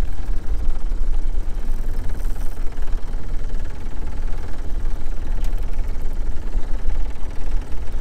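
Small Mercury outboard motor running at trolling speed: a steady low rumble.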